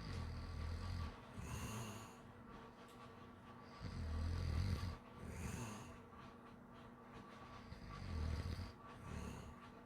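A sleeping person snoring in a slow, regular rhythm: three low snores on the in-breath, about four seconds apart, each followed by a shorter, breathy out-breath.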